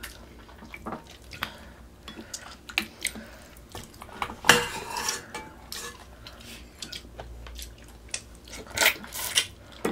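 Cutlery clinking and scraping against dishes as food is eaten, in scattered sharp clicks with a louder clatter about halfway through and again near the end.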